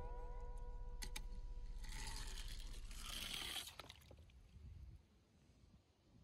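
A small die-cast toy fire truck splashes into a plastic tub of water about two seconds in, a splash lasting about a second and a half, after a click about a second in.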